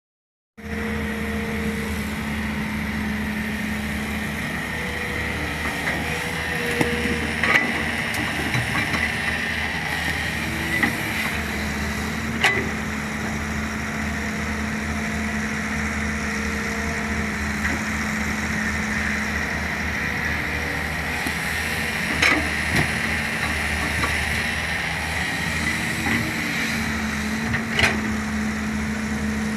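Diesel engine of a long-reach Kobelco excavator running steadily, with a higher tone coming and going and several sharp knocks of work at the machine.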